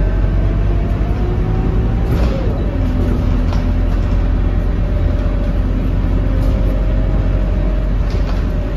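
Scania K230UB city bus running on the road, heard from inside the passenger saloon: a steady low engine rumble with a whine on top that rises gently, then drops about two seconds in, and a few short rattles from the interior.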